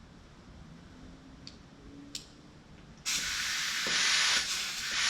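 Compressed air hissing steadily from a tire valve and MORRFlate inflation hose as the hose's lock-on chuck is fitted, starting suddenly about three seconds in after a couple of light clicks.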